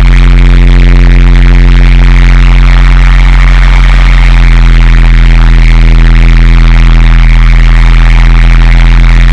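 Electronic drone and harsh-noise music: a loud, steady low drone of held tones under a grainy wash of noise.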